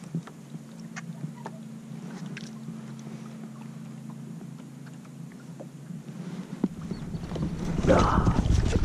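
A hooked trout thrashing and splashing at the water's surface close by, near the end and louder than anything before it. Before that there is only a low steady hum with a few light ticks.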